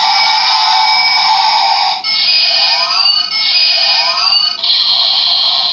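Bootleg Ultraman Orb Ring-style transformation toy sounding its electronic transformation effect through its tiny speaker: a loud, tinny synthesized tone that starts suddenly. It has rising sweeps twice, about two and four seconds in, and shifts to a different tone near the end.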